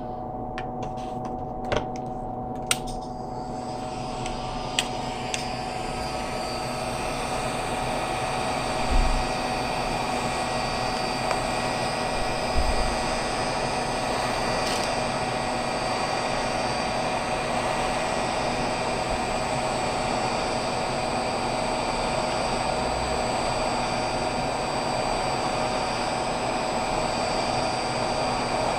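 Hot air rework gun running steadily: the blower fan whirring with a steady whine over rushing air while it heats a BGA CPU to melt its solder balls. A few light clicks come in the first few seconds, and two dull low thumps come later.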